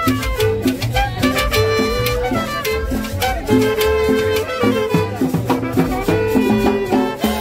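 Live cumbia from a small street band: an accordion plays the melody over plucked upright bass notes, with a metal güiro scraper keeping a steady rhythm.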